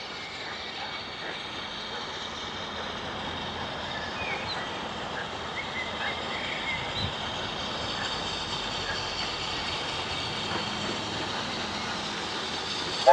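Steam locomotive hauling a train of coaches, heard from a distance as a steady rushing sound that slowly grows louder as it approaches. Wind noise on the microphone is mixed in.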